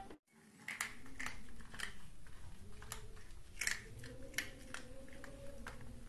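Cat crunching dry kibble from a bowl: irregular faint crunches and clicks, with a faint steady hum underneath.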